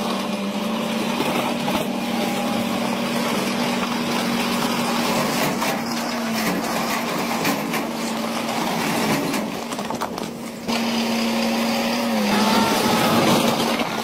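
Diesel engines of heavy dump trucks running steadily while their beds tip and loads of broken rock slide out. The sound cuts abruptly and comes back a little louder about three-quarters of the way through.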